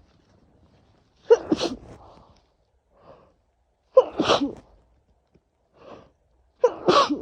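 A woman sneezing three times in a row, about every two and a half seconds, each sneeze sharp at the start with a voiced tail: a sneezing fit from a head cold.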